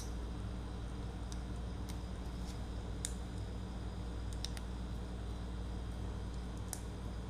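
Faint, scattered small clicks as flex cable connectors are pressed onto a Samsung Galaxy Note 2's motherboard, about six in all, over a steady low hum.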